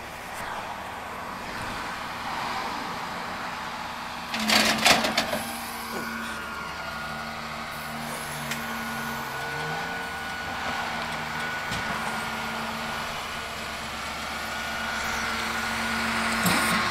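Flatbed tow truck running, its engine and hydraulic pump giving a steady whine while the tilted bed is drawn back up level. A loud, sudden rush of noise comes about four seconds in, just before the whine starts.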